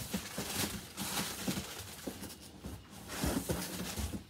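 Boxes and packaging being rustled and bumped as they are handled, in irregular bursts with a few knocks, busiest about three seconds in.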